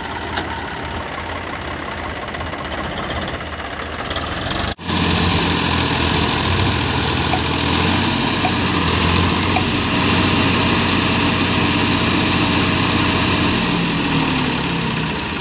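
Swaraj 855 FE and Massey Ferguson 245 tractors' diesel engines running as one tractor tries to pull the other, with its rotavator, out of deep mud. The sound cuts out for an instant about five seconds in, then returns as a louder, steady low engine drone.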